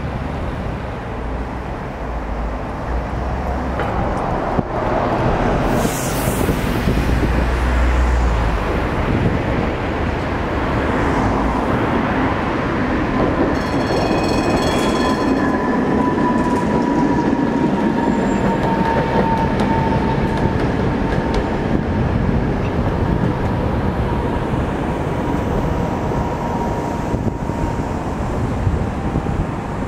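Tatra T3 trams running along a tram street amid car traffic: low traffic rumble at first, then a long whine from the passing tram that slowly falls in pitch, with a brief high ringing tone at the tram's arrival.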